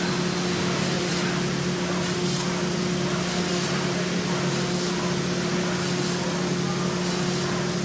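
3-axis CNC machining center milling foam, running with a steady hum and an even whirring noise.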